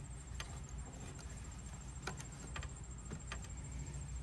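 Light handling noises: a few sharp clicks and a rag rustling as gloved hands wipe around a Honda lawnmower's oil filler and take out the dipstick cap, over a steady faint high-pitched tone.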